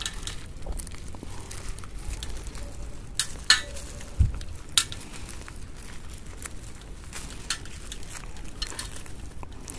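Hands crumbling and pulling apart the compacted, root-bound soil ball of an Echeveria elegans colony: soft crackling and rustling of dry roots and substrate, with a few sharper clicks and a low thump between about three and five seconds in. The substrate has packed hard from the dense mass of roots and is being loosened away from them.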